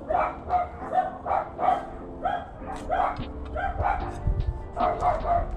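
A small dog yapping over and over in short, high barks, about two to three a second.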